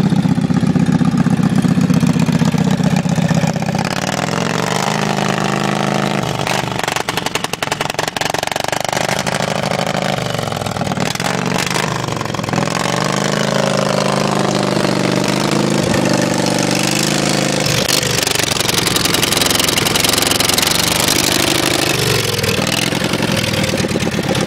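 Lawn mower engine running with its muffler unclamped, a loud open exhaust. It runs steadily for a few seconds, then is revved up and down again and again.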